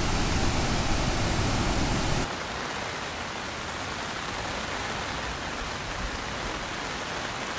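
Floodwater pouring down a dam spillway: a loud, deep, steady rush of water. About two seconds in it cuts off abruptly to a quieter, even rushing hiss of water beside a swollen, fast-flowing river.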